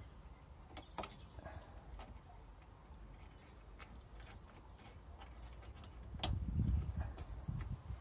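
Insulation resistance tester beeping: four short, high beeps about two seconds apart while it tests the dishwasher wiring for a short to earth. Faint handling clicks and knocks come with it, and a low rumble near the end.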